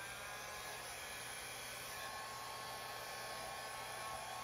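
Handheld hair dryer running steadily: a rush of air with a faint whine, blowing wet acrylic pouring paint across a canvas in the blowout technique.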